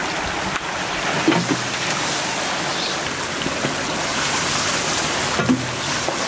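A large steel pan of curry steaming and sizzling with a steady hiss as boiled dried fish pieces are tipped in from a basket and stirred with a long ladle. Two brief knocks, about a second in and near the end.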